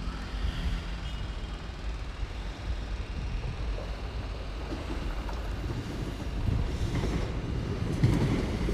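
Great Western Railway Class 802 bi-mode intercity train passing, a steady low rumble of the train on the rails that grows a little louder in the second half.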